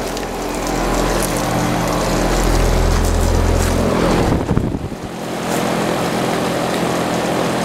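2011 Trane XB13 3-ton air-conditioner condenser running: a steady hum from its Alliance scroll compressor under the rush of air from the condenser fan. From about two and a half seconds in, a low wind rumble on the microphone swells for over a second, and the sound briefly dips just before the five-second mark.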